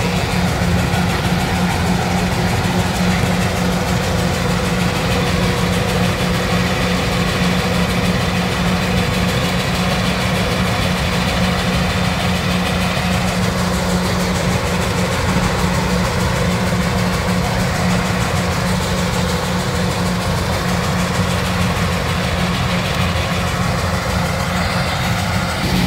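Rice combine harvester's engine and cutting machinery running steadily at a constant pitch, with a strong low hum throughout.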